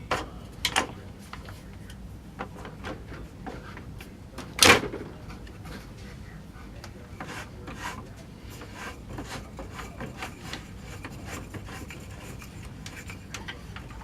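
Stripped AK-47 rifle receiver being handled on a workbench: scattered light clicks and rubbing of metal and wood parts, with one sharp knock about four and a half seconds in.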